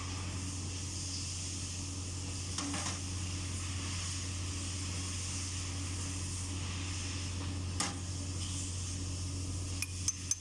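A steady low mechanical hum with a haze of hiss, broken by a few sharp clicks: one about a quarter of the way in, one near three quarters, and several in quick succession near the end.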